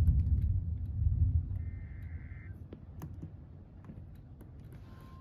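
NOAA weather radio receiving a severe thunderstorm warning. A brief warbling SAME data burst of the alert header comes about a second and a half in, and near the end the steady, loud 1050 Hz warning alarm tone starts. A low rumble fades away over the first couple of seconds, with a few soft clicks throughout.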